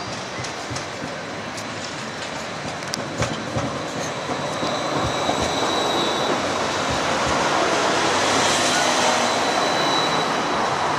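Bombardier Flexity tram passing close by, its rolling noise building to the loudest as the car goes past. A thin high whine comes and goes over the noise, with a few sharp clicks from the wheels on the rails about three seconds in.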